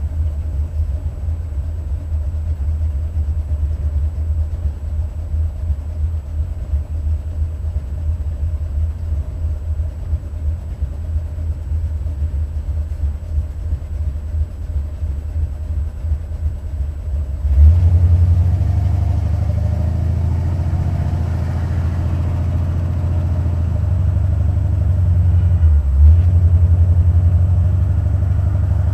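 Buick 455 V8 idling with a steady, pulsing rumble. About two-thirds of the way through it suddenly gets louder as the car pulls away under throttle, and near the end the note briefly dips and jumps.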